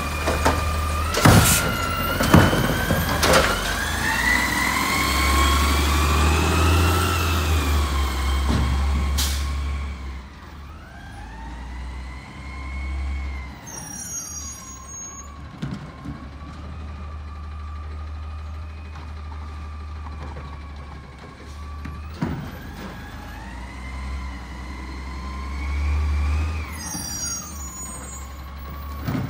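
Automated side-loader garbage truck: several loud clanks, then its diesel engine revving up and settling back for several seconds as it works. Then, quieter, a garbage truck's engine rises and falls twice as it moves up the street, over a steady low rumble.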